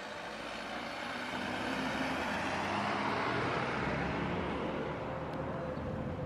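Airbus A330-300 jet engines at takeoff thrust during the takeoff roll: a steady jet noise that swells over the first few seconds and then holds, with a steady whine coming in near the end.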